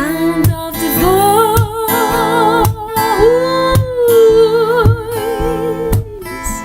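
Music: a singer holds long notes with vibrato over strummed acoustic guitar and a steady beat of about two strokes a second.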